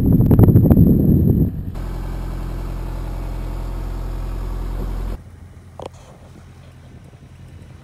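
A loud rough rumble for about the first second and a half. Then an electric coffee grinder runs with a steady hum for about three and a half seconds and cuts off suddenly. After it comes quiet background noise with a single click.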